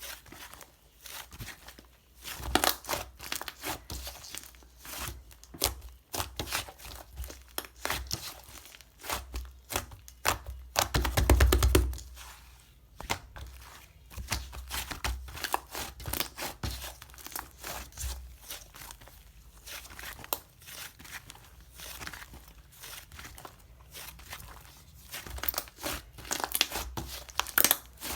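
Fluffy white slime being squished and pressed by hand, making an irregular run of small crackling pops and squelches. About 11 seconds in there is a louder, longer crackling stretch with a low thud under it.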